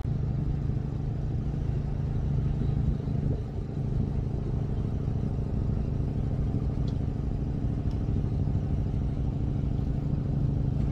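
Fishing boat's engine running steadily, a low hum.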